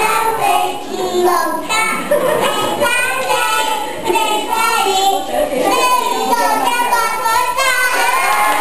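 Children singing a song together, the voices carrying on without a break.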